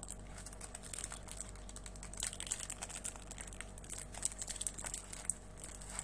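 Foil trading-card packet crinkling as it is torn open by hand, a run of irregular crackles and clicks.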